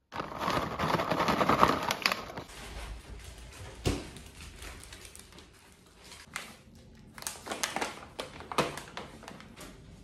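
A crinkling rustle of packaging for about the first two and a half seconds, then scattered sharp clicks and taps.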